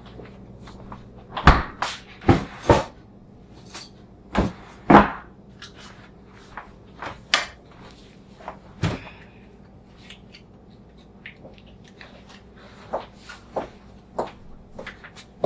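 Knocks and clatter of a refrigerator door and food containers being handled, loudest in the first five seconds, with another knock near nine seconds. Toward the end, lighter taps of a spoon against a small cup.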